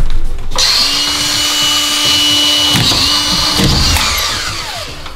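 Makita DFR450 cordless collated screw gun's motor starting up about half a second in and running at a steady high whine, dipping briefly near the middle as a screw is driven into plasterboard. The trigger is then released and the motor winds down in a falling whine.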